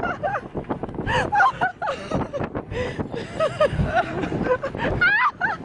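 People laughing, in gleeful, excited bursts with a quick rising-and-falling squeal about five seconds in.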